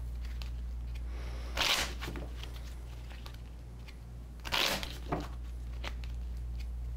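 A deck of tarot cards being shuffled by hand: two short rustling bursts of cards about three seconds apart, over a steady low hum.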